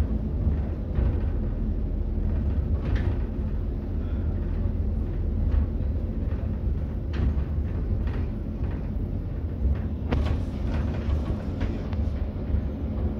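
Steady low engine and road rumble heard inside the lower deck of an Alexander Dennis Enviro 400 double-decker bus on the move, with short knocks now and then, several close together near the end.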